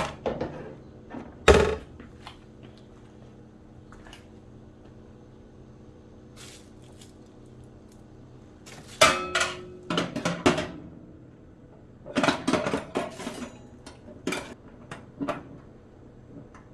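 Metal air fryer oven accessories, a rotisserie rod and racks, clinking and knocking against the oven's stainless-steel cavity as they are handled and slid into place. There is one loud knock about a second and a half in, then bursts of rattling and clatter in the second half, over a faint steady hum.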